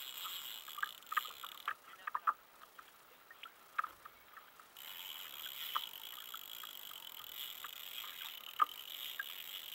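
Quiet sounds of a kayak on the sea while a fish is being played on rod and reel: scattered light ticks and water lapping, over a steady hiss that drops out for a few seconds and returns about halfway through.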